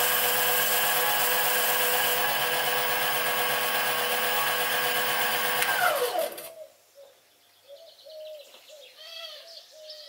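Sieg SC3 mini lathe running, turning the side of an aluminium disc, with a steady motor whine and cutting hiss. About six seconds in it is switched off and the whine falls away as the spindle spins down, leaving faint bird chirps.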